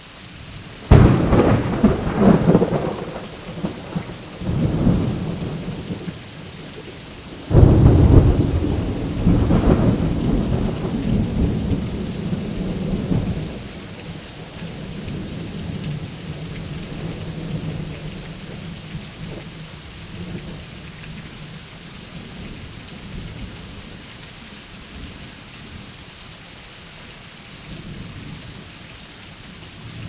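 Steady rain falling during a thunderstorm. Thunder cracks about a second in and rumbles for a couple of seconds, a smaller peal follows a few seconds later, and a loud clap at about seven and a half seconds rolls on for several seconds before dying down to a faint low rumble under the rain.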